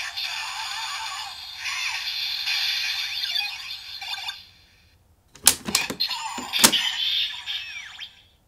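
Bandai DX Gamer Driver toy belt playing its electronic transformation jingle and announcer call ("Mighty Action X!") through its small, tinny speaker. The sound breaks off about five seconds in. The plastic lever then snaps shut with sharp clicks, the first about half a second later and another just over a second after that, and the toy answers with its "Gashun!" sound effect.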